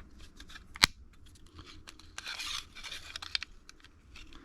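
Clicks and scraping from a partly disassembled Milwaukee AutoLock tape measure being handled and its blade pulled out to test the auto-lock. One sharp click about a second in is the loudest sound, with a short scraping rustle near the middle.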